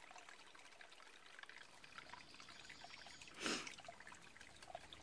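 A creek trickling faintly, with small ticks of water throughout. A short, louder noise about three and a half seconds in.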